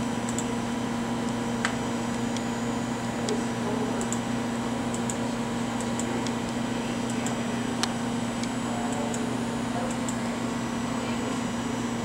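Steady electrical hum of control-room computer and plant equipment, with a low droning tone and a few light clicks scattered through.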